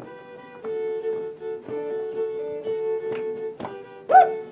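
Instrumental folk tune, fiddle-like, played over a sustained drone note, with hand claps joining in near the end and a loud short shout about four seconds in.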